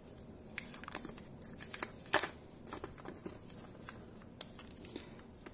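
Clear plastic protective sleeve on a tablet crinkling and rustling as fingers pick at its edge, with scattered small clicks and taps, the sharpest about two seconds in.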